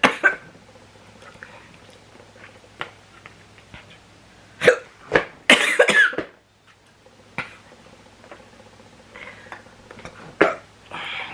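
A woman hiccuping repeatedly, brought on by eating very spicy instant noodles. It is a string of short, sharp hiccups at irregular intervals, the loudest cluster about halfway through.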